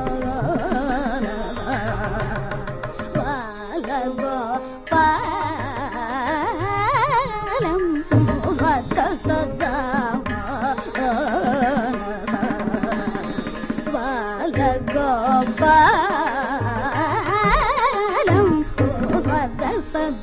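Carnatic classical music: a heavily ornamented melody sliding and oscillating between notes, over mridangam drumming.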